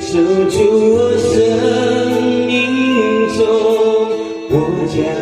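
A Mandarin pop love song playing: a sung melody with long held notes over instrumental backing, with light percussion ticking along.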